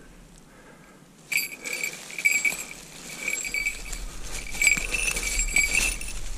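Dry leaves rustling and crackling under a red-tailed hawk holding down a squirrel it has caught. From about a second in, a high-pitched ringing sound comes and goes in short runs.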